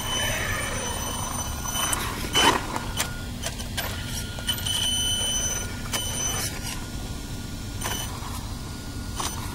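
Brushless electric drive of a 1/16 Traxxas Summit RC truck running out of sight, a steady high-pitched whine that cuts in and out, with scattered clicks and knocks from the truck. The loudest knock comes about two and a half seconds in.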